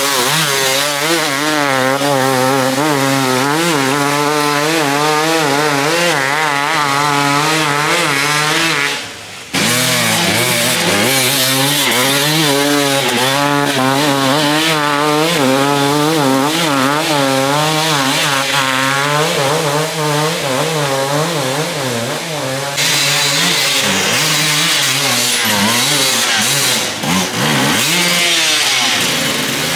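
Two-stroke enduro dirt bike engines revving hard, the pitch swinging up and down again and again as the throttle is worked. The sound drops out briefly about nine seconds in.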